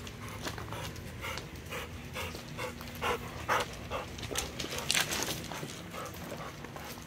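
A dog panting, in a run of short, irregular breaths.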